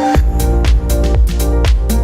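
Electronic dance music with a steady beat and sustained synth chords.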